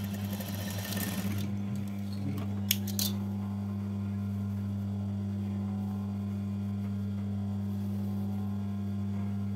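Sewing machine stitching for about the first second and a half, then stopping, followed by two light clicks. A steady low electrical hum runs underneath throughout.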